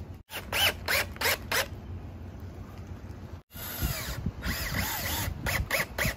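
Cordless drill driving screws into pine boards in a series of short trigger bursts, each a quick rising-and-falling whine. There are two brief silent gaps, one just after the start and one past the middle.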